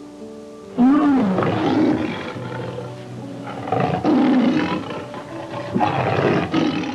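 A large animal calling loudly three times, each call rising and then falling in pitch, about a second in, around four seconds in and near six seconds in, over background music with long held notes.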